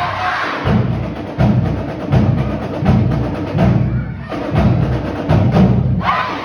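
High school marching band playing, its drums keeping a steady beat of about one and a half strokes a second under many sharp percussion hits.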